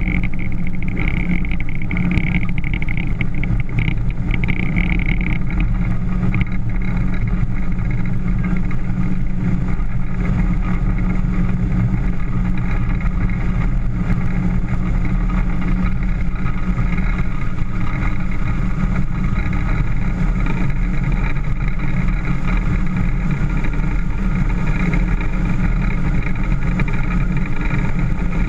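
A motorboat's engine running steadily while the boat is under way, with a continuous low drone and a rushing haze of noise over it.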